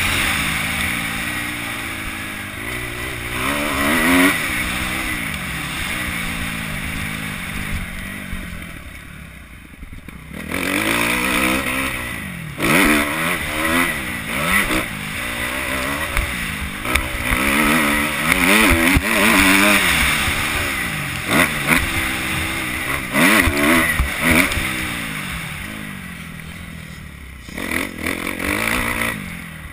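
2011 Kawasaki KX250F's four-stroke single-cylinder engine revving up and down through the gears at race pace, the pitch rising and falling over and over. The throttle is backed off twice, about a third of the way in and again near the end, before the engine revs back up.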